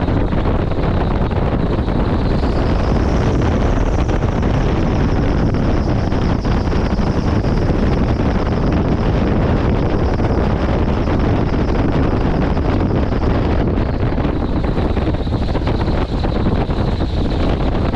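Heavy wind noise buffeting the microphone over a steady mechanical drone, with a thin high whine that rises in pitch a couple of seconds in and drops back about three-quarters of the way through.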